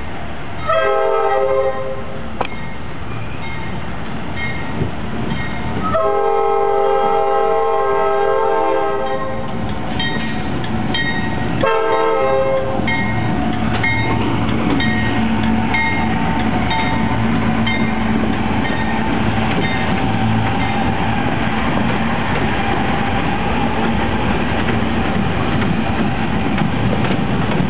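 Norfolk Southern diesel freight locomotives sounding a multi-note air horn three times as they approach: a short blast about a second in, a longer one from about six to nine seconds, and a short one near twelve seconds. Then the lead locomotives pass close by with a steady low diesel engine rumble and wheels clicking over the rail joints.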